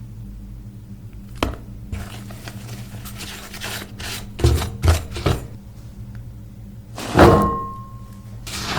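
Metal kitchen utensils knocking against bowls or a pan over a steady low hum, with a louder metallic clang about seven seconds in that rings on briefly.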